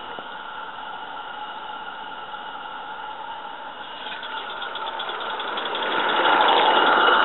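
Live steam 16mm-scale model locomotive coming through a tunnel, its rhythmic running beat growing steadily louder from about four seconds in as it nears the mouth.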